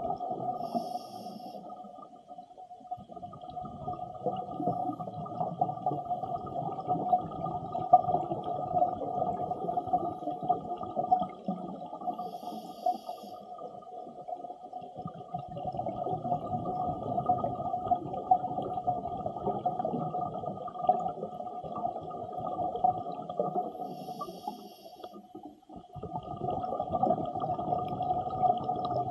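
A scuba diver breathing underwater through an Apeks XTX-50 regulator: three short inhalation hisses, each followed by a long rumble of exhaled bubbles lasting about ten seconds, over a steady tone.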